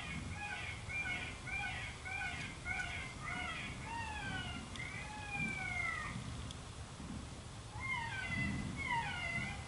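Primos Dogg Catcher electronic predator call playing a recorded animal cry through its speaker: a quick run of short, wavering cries, then longer falling wails, a pause of about a second, and more falling cries.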